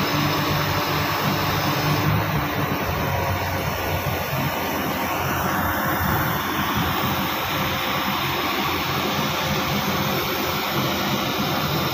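Oil drilling rig machinery running: a steady mechanical din with a low hum.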